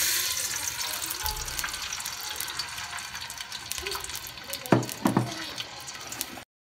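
Cooking oil poured into a metal cooking pot, the pouring hiss fading, then faint crackling as the oil sits in the pot. Two knocks come about five seconds in, and the sound cuts off abruptly just before the end.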